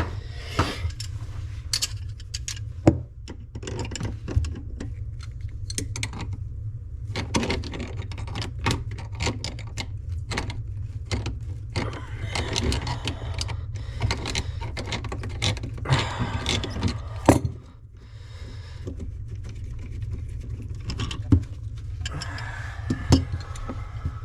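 Metal wrenches clinking, knocking and scraping against a plumbing fitting in a run of irregular sharp clicks while working two wrenches on a long-seated nut, over a steady low hum.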